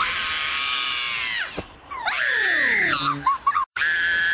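High-pitched shrieks chopped together by abrupt edits: a long held shriek, then another with falling sliding tones beneath it, a sudden cut to silence, and a steady held shriek near the end.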